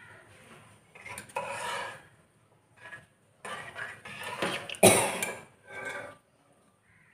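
Steel ladle scraping and clinking against a metal pot while stirring thick milk payasam, in several irregular bursts, the loudest about five seconds in.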